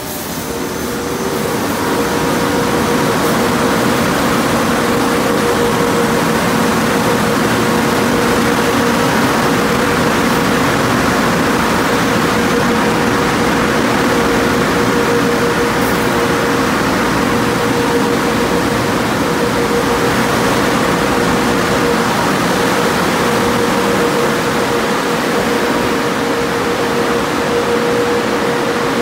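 Car wash tunnel dryer blowers running: a loud, steady rush of air with a steady whine underneath, building up over the first couple of seconds and then holding.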